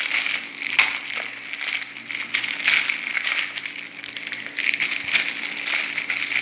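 Plastic packaging crinkling and crackling as it is handled and pulled open to unwrap a Simple Dimple fidget toy, with irregular sharp crackles.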